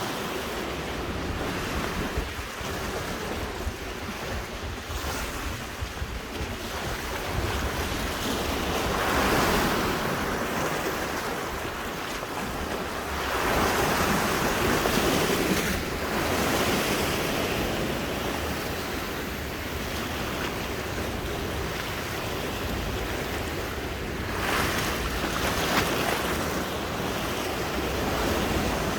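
Sea waves washing onto the shore, the surf swelling louder about a third of the way in, again around the middle and once more near the end, with wind rumbling on the microphone.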